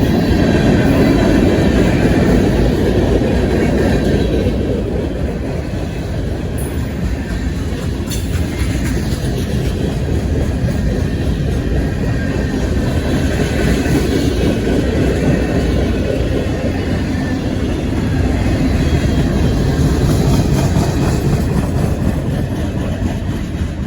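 Freight train rolling past: a steady, loud rumble of steel wheels on rail that swells and eases a few times.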